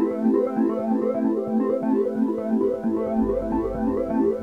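Background music: a quick, even run of keyboard-like notes, with a deep bass note coming in about three seconds in.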